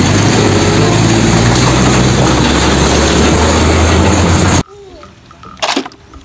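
Diesel engine and road noise of an Isuzu FTR car-carrier truck driving by, a loud steady rumble with a low hum that cuts off suddenly about four and a half seconds in. After it, a much quieter stretch with a single sharp knock and a few faint clicks.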